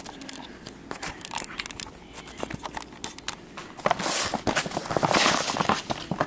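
Action-figure packaging being handled and pulled open: scattered small clicks and crackles, then loud crinkling and tearing from about four seconds in.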